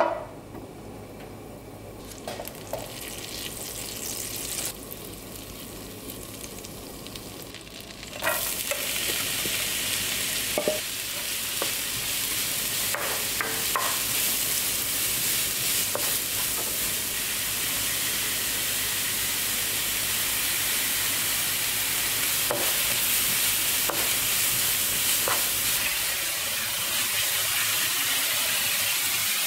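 Butter sizzling in a nonstick frying pan. About eight seconds in, a louder, steady frying sizzle starts as diced onion goes into the pan, with a wooden spoon scraping and stirring it.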